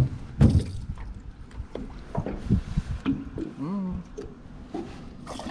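Knocks and bumps of handling in a small fishing boat as a caught bass is dealt with, one loud knock about half a second in, over a low rumble.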